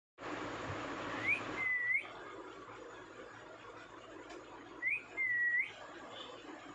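Indian ringneck parakeet whistling twice, each time a short rising note followed by a longer held whistle that flicks upward at the end. A steady hiss of background noise sits under the first call and cuts off about one and a half seconds in.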